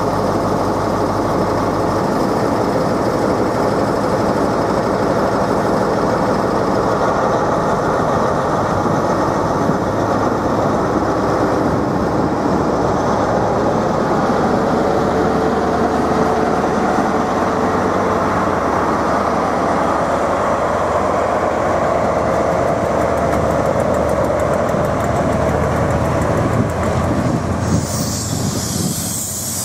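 InterCity 125 HST pulling away: the Class 43 power car's diesel engine runs steadily while the Mark 3 coaches roll past on the rails. A hiss rises near the end.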